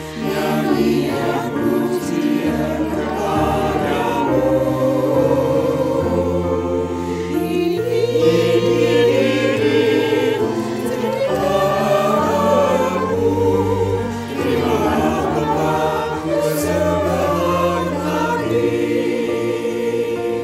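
A senior church choir of mostly women with a few men, its parts mixed from separate home recordings, singing with instrumental accompaniment that holds sustained bass notes.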